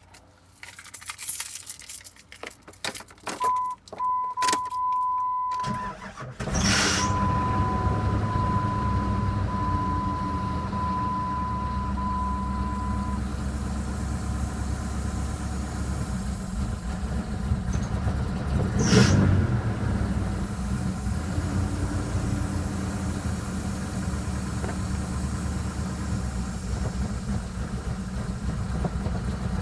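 2000 Jeep Grand Cherokee's 4.7-litre V8 being started: key clicks and an intermittent warning chime, then the engine catches about six seconds in and runs at idle, with brief louder surges near the start and about two-thirds through. The running engine has the tapping, knocking and rattling that a mechanic put down to two slapping pistons and a badly slack timing chain.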